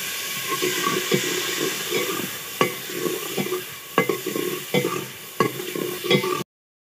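Tomatoes and green chillies sizzling as they fry in an aluminium pot. A long steel ladle stirs them and clinks against the pot's side about six times. The sound cuts off abruptly just before the end.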